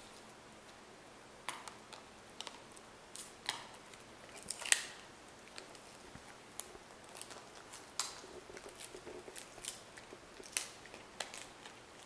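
Dog gnawing on a stick: irregular sharp cracks and crunches of teeth on the stick, a second or so apart, the loudest about halfway through.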